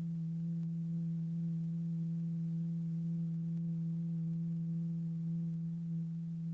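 A steady, low, pure electronic tone with faint overtones: the drive tone that sets the diaphragm and its lycopodium powder vibrating.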